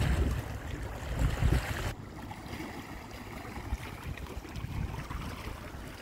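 Wind buffeting the phone's microphone in low rumbling gusts, dropping off suddenly about two seconds in to a quieter, steady noise of wind and small waves lapping against the rocky shore.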